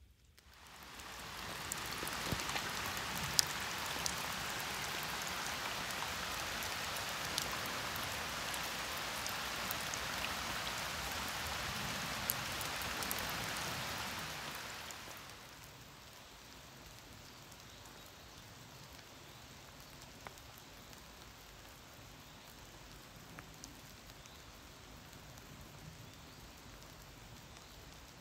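Steady rain falling in a forest, with sharp ticks of single drops landing close by. It fades in over the first second or two and turns markedly quieter about halfway through.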